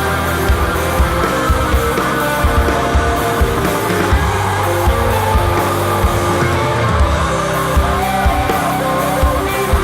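Live heavy psychedelic stoner rock: distorted electric guitars and bass holding sustained notes over a steady drum beat, about two kick hits a second.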